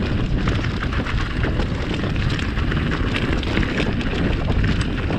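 Mountain bike rolling down a rocky dirt singletrack: a steady low rumble of wind buffeting the camera microphone and tyre noise, with constant small clicks and rattles from the bike over stones.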